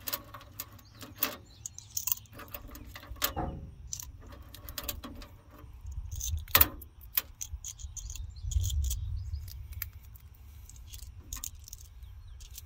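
Small metal screwdriver bits clicking and clinking as they are handled and taken out of a screwdriver's storage handle: scattered light clicks, the sharpest about two-thirds of the way through, over a steady low rumble.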